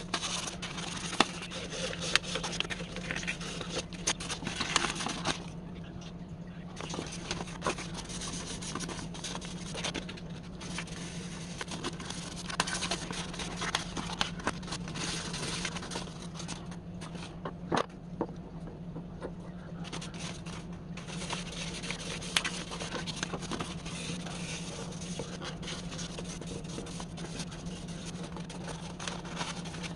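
Hand sanding: a sheet of sandpaper rubbed back and forth over the worn wooden handle of an antique paint scraper, in runs of strokes with a couple of short pauses.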